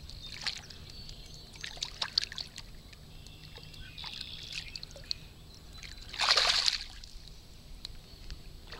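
A bass being released by hand into shallow water: small splashes and trickling as it is lowered in, then one louder splash about six seconds in.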